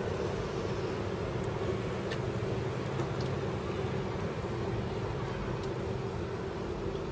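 An engine running steadily with a low, even drone and a constant hum.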